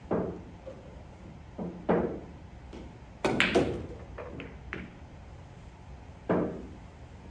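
Pool balls clacking on a pool table during a shot: the cue strikes the cue ball, which hits an object ball into a corner pocket, then knocks off the cushion and taps another ball. The sharp knocks come one at a time, with the loudest quick cluster a little past three seconds in.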